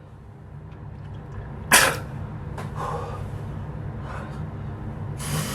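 A man's sharp burst of breath about two seconds in, with softer breaths after it and a second burst near the end, over a low steady hum. This is his breathing in reaction to the burn of hot chili peppers.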